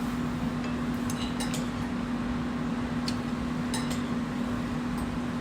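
Cutlery and dishes clinking a few times during a meal, over a steady low hum and general restaurant background noise.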